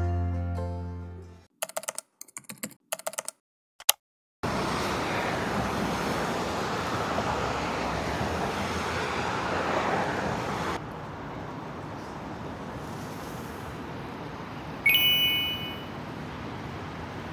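Background music fading out, then a couple of seconds of sharp clicks, then steady city street traffic noise that drops quieter about two-thirds of the way through. A short bright ringing tone sounds near the end.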